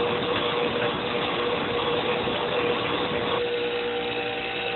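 Bench grinder running with a steady motor hum while the steel jaws of a pair of side cutters are ground against the wheel, to take off the lip so they cut flush. The grinding hiss drops away about three and a half seconds in as the cutters come off the wheel, and the grinder keeps spinning.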